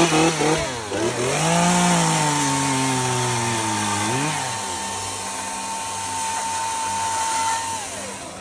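Chainsaws cutting through a wooden beam: a Milwaukee cordless electric chainsaw and a Stihl chainsaw running at once. A steady high whine holds and then winds down near the end, while a lower note rises and falls a few times as the saws work through the wood.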